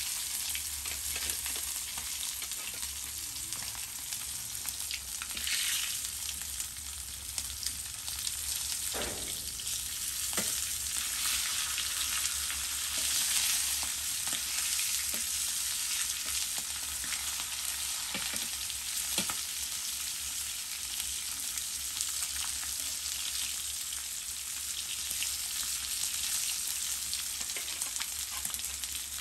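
Alfaham chicken pieces sizzling steadily in shallow oil in a flat iron pan. A few sharp clicks come through the sizzle near the middle.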